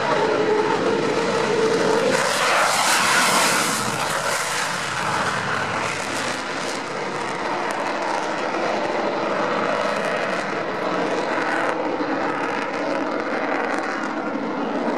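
Eurofighter Typhoon's twin EJ200 turbofan engines in afterburner on takeoff and a steep climb. The jet noise is loudest about two to four seconds in, then carries on steadily as the fighter climbs away.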